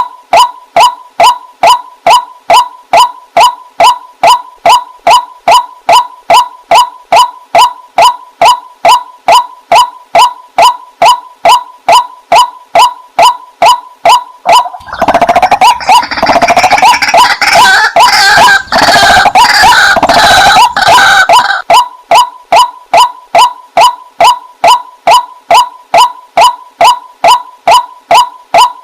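White-breasted waterhen calling, a steady, rapidly repeated harsh two-to-three-a-second note. About halfway through, a denser, noisier stretch of several seconds with overlapping calls sits over the steady series before it carries on alone.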